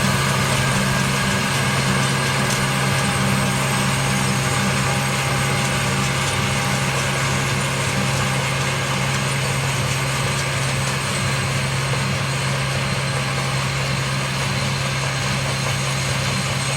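Tractor engine running steadily while pulling a hay baler, an even drone with no change in speed.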